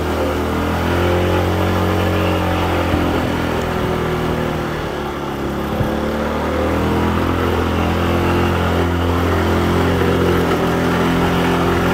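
Motor scooter engine pulling steadily under load up a steep hill, its note sagging a little midway and then picking up again, with road and wind noise over it.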